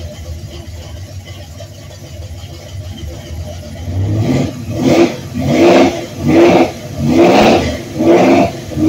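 Freshly built, fuel-injected Ford Cleveland V8 with a long-duration cam running on its first heat cycle. It idles for about four seconds, then is revved in a string of quick throttle blips, about five in all, each under a second apart.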